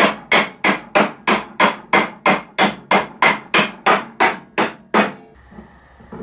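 A wooden mallet strikes wood in a steady run of about sixteen sharp knocks, roughly three a second, stopping about five seconds in.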